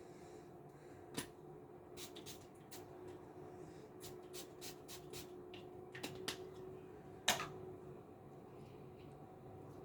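A run of light clicks and taps from small objects being handled, irregularly spaced, with one sharper click about seven seconds in, over a faint steady hum.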